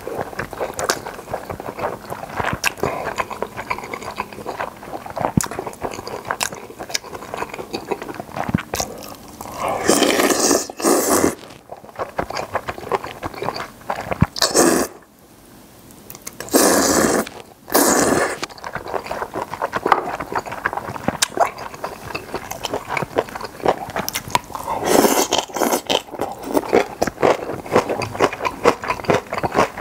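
Close-miked eating of a spicy noodle stew: wet chewing and mouth clicks throughout, with louder slurps of noodles about ten seconds in, again around seventeen seconds, and near twenty-five seconds.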